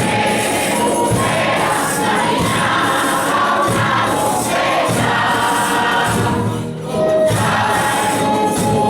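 A villancico (Spanish Christmas carol) playing: a sung or played melody over a steady beat, with regular jingling percussion like a tambourine.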